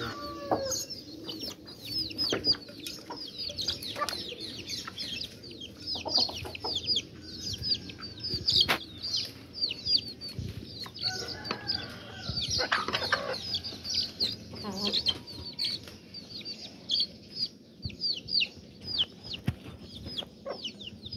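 Aseel chicks peeping constantly in short, high, falling calls, several a second, while the adult hens cluck now and then. Occasional sharp taps come from beaks pecking at the feed bowl.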